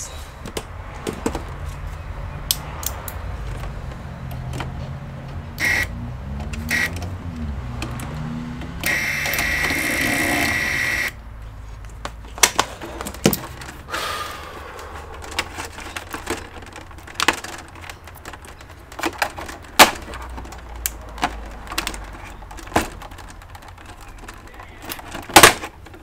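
Scattered sharp clicks and knocks of screwdrivers and the plastic casing of an HP all-in-one PC being handled. About nine seconds in, a small electric screwdriver whirs steadily for about two seconds, working a stubborn screw.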